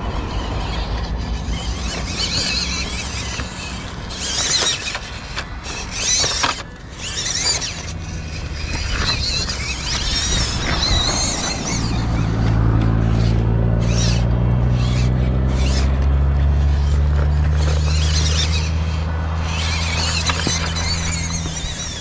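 Small electric motor and gearbox of an MN96 1/12-scale RC crawler whining as it drives over mud and rough ground, the whine rising and falling in pitch with the throttle. A steady low hum comes in about halfway through and is the loudest sound in the second half.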